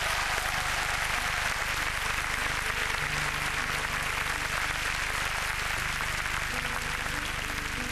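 Large arena audience applauding steadily. From about three seconds in, the quiet sustained notes of a song's instrumental introduction begin underneath.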